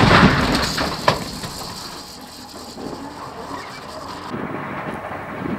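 Echo and rumble of a tracked armoured vehicle's main gun firing, dying away over about two seconds, with a sharp crack about a second in; a lower steady rumble follows.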